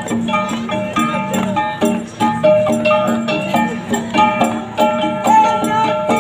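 Igorot gangsa, flat bronze gongs, beaten together in a steady rhythm: many ringing metallic strikes a second at several different pitches.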